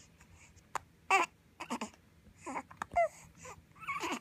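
Baby babbling: about five short, separate vocal sounds with bending pitch, spread over a few seconds.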